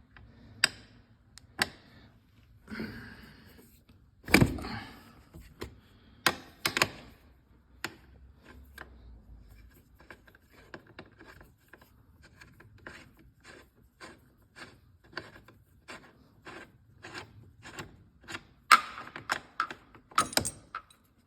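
Hand tool working out a seatbelt screw: a run of sharp, evenly spaced clicks about twice a second, with a few louder knocks as the tool and parts are handled.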